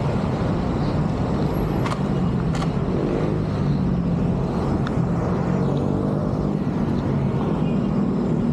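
Street traffic: vehicle engines running close by, a steady low hum over road noise, with two sharp clicks about two seconds in.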